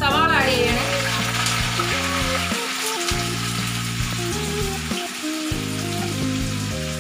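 Sliced onions sizzling as they fry in hot oil in a kadai, a steady crackling hiss, over instrumental background music.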